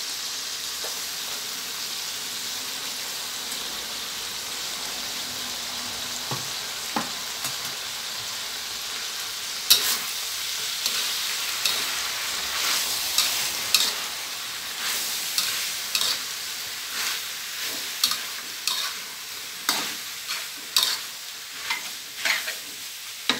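Mixed vegetables and pork sizzling in oil in a hot metal wok. From about ten seconds in, a metal spatula scrapes and knocks against the wok about once or twice a second as the food is stir-fried.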